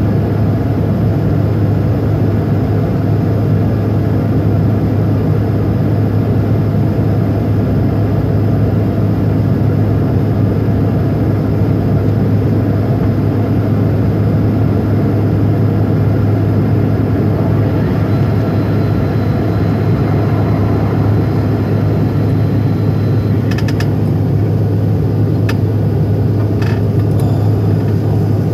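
Steady airliner cabin noise in flight after take-off: jet engines and airflow with a strong low hum, heard from inside the cabin by the window. A few light clicks near the end.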